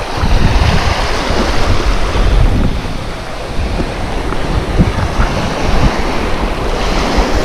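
Small waves washing up and running back over a sandy beach, with wind buffeting the microphone in gusts.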